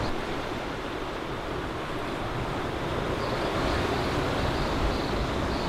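Crashing surf: a steady, even rush of breaking waves.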